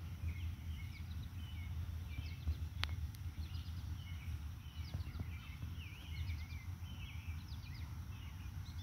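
Small songbirds chirping and twittering on and off, over a low steady background rumble, with one faint click about three seconds in.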